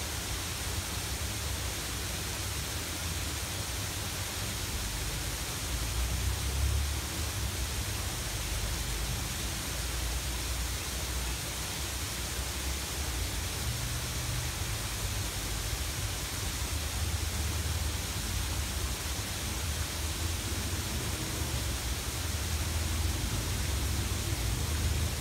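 Steady rushing hiss of a waterfall splashing into a pond, with an uneven low rumble underneath.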